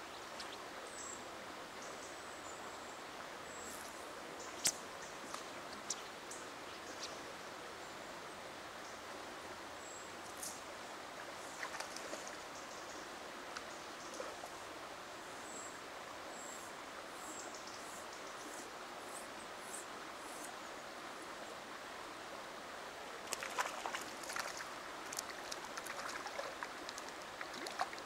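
Steady rush of flowing river water, with a few brief high chirps scattered through it. In the last five seconds a run of small irregular splashes as a hooked brown trout is brought to hand at the water's edge.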